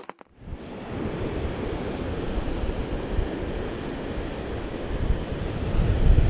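Wind buffeting the microphone over the steady wash of surf on a beach, starting about half a second in.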